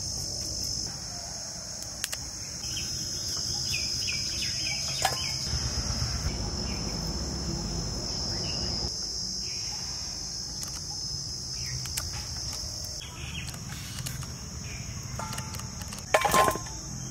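Steady high-pitched drone of insects, with light snaps and knocks as cauliflower florets are cut on a boti blade and dropped into a steel bowl; the loudest is a sudden clatter near the end.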